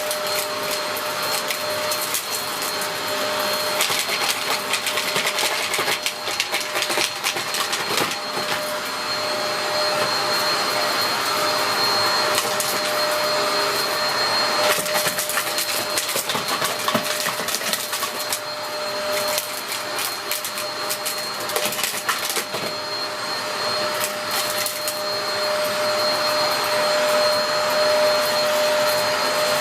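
Dyson DC03 upright vacuum cleaner running with a steady whine. Frequent clicks and crackles of debris are being sucked up through it.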